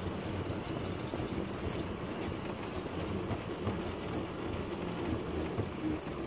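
Philippine tricycle, a motorcycle with a sidecar, riding steadily along a concrete road: continuous engine and road noise without a break.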